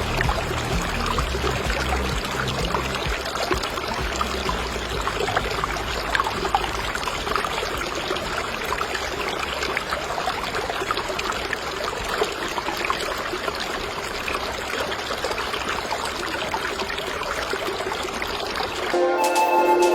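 Water trickling and splashing steadily from a homemade glass-bottle water fountain, with music starting near the end.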